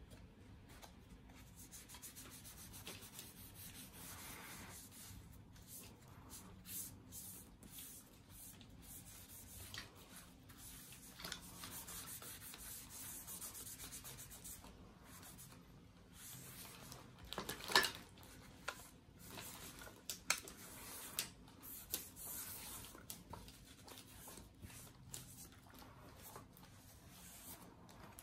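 Fingers and a foam applicator rubbing wood-care grease into the wooden stock of a Kar 98k airsoft rifle: faint, uneven rubbing. About two-thirds of the way through comes one sharp knock, then a few lighter clicks, as the rifle is handled.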